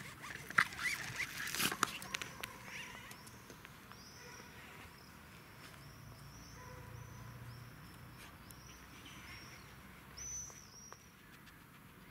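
Two Jack Russell terriers playing rough, with short squeaky yips and scuffling in the first two seconds. Then a small bird chirps over and over, high-pitched, roughly once or twice a second, with one louder chirp near the end.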